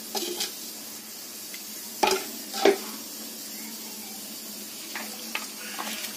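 Metal utensil stirring and knocking against an aluminium pressure cooker full of coconut milk and water, with two louder knocks about two seconds in and a few lighter ones near the end.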